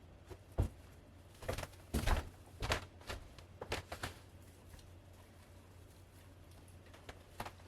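Light taps and clicks of 3D-printed ornaments being handled and hung on a Christmas tree: several in the first four seconds, then a pause, then two more near the end.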